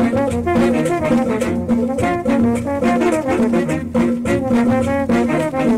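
Cumbia music with a brass section playing melody lines over a steady percussion beat.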